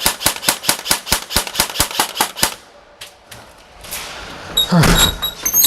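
Airsoft gun firing a rapid string of shots, about eight a second, stopping about two and a half seconds in. A short, loud sound with a falling pitch comes near the end.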